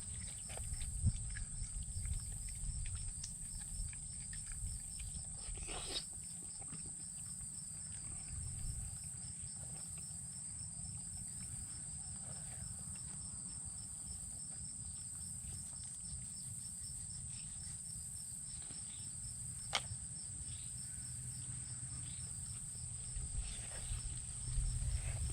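Crickets trilling steadily in a fast, even pulse, over a low rumble, with a couple of sharp clicks.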